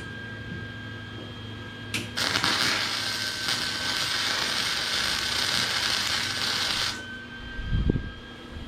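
Welding arc crackling steadily for about five seconds as a bead is laid, starting just after a click and cutting off sharply, followed by a couple of low thumps.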